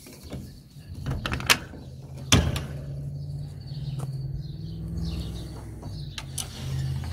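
Hinged wooden vent flap on a chicken coop being unlatched and swung open by hand, the metal latch clicking, with two sharp knocks of wood on the frame about one and a half and two and a half seconds in. A low steady hum runs underneath from about a second in.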